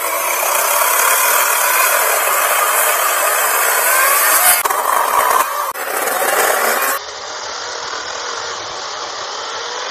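Badger 40V brushless cordless chainsaw cutting through a fallen log, the chain chewing through the wood. About seven seconds in, the level drops suddenly to a quieter, steady whine of the electric motor.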